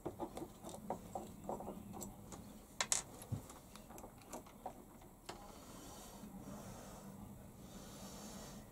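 Light clicks, taps and scrapes of metal lathe compound-slide parts being handled and fitted together by hand, with one sharper click about three seconds in; after about five seconds the handling goes quiet.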